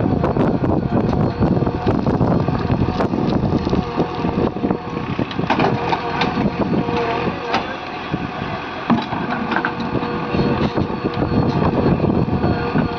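JCB excavator's diesel engine running under load, with frequent short clanks and knocks from the machine working.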